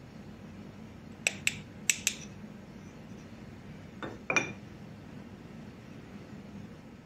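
Sharp metallic clicks of a small measuring spoon tapping a stainless mesh sieve, two quick pairs of them, then two more clinks with a short ring about four seconds in, over a low steady hum.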